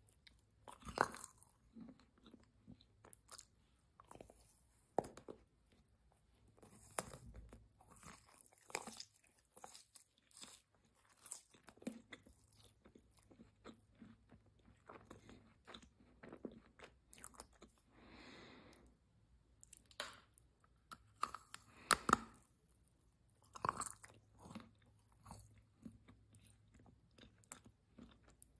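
Close-miked mouth sounds of a person biting into and chewing chocolate-coated sweets: crisp crunches of the chocolate shell and softer wet chewing between them. Sharp bites come about a second in, about five seconds in, and loudest about two-thirds of the way through.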